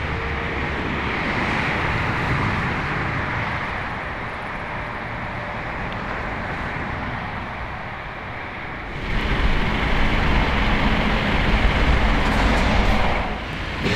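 Motorway traffic noise, a steady rush of passing vehicles. About nine seconds in it changes abruptly to a louder, deeper rumble.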